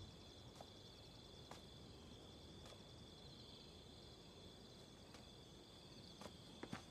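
Faint night ambience of crickets chirring: a thin, steady high trill, with a few faint clicks near the end.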